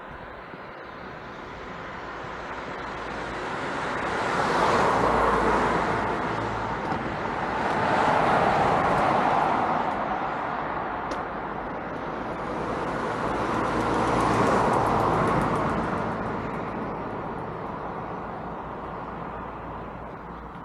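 Cars passing on a street one after another, their tyre and engine noise swelling and fading three times, the second pass close behind the first.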